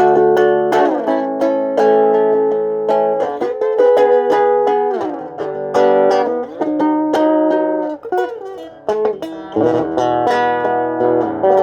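A guitar played solo, with picked single notes and chords and several notes sliding in pitch.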